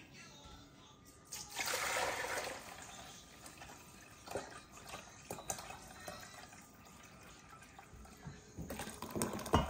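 Liquid pouring and splashing into a stainless steel mixing bowl as chicken broth is tipped in from a pot, loudest about two seconds in and again near the end, with a few light clicks.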